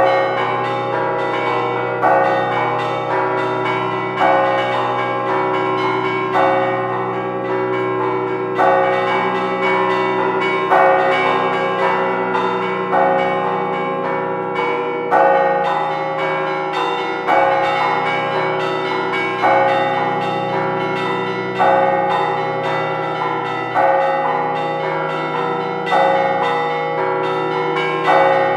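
Several church bells ringing continuously in a steady peal, strike overlapping strike, with a louder stroke about every two seconds.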